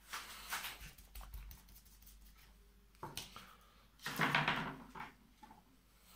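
Short bursts of scratchy rustling and scraping with small clicks, the loudest a little after four seconds in.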